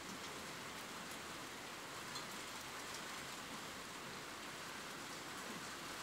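Light rain falling steadily, with a few faint drop ticks.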